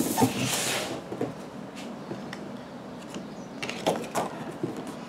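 A cardboard shoe box and the sneaker being handled and moved: a rustle in the first second, then scattered light knocks and scrapes of cardboard, the clearest about four seconds in as the box is lifted.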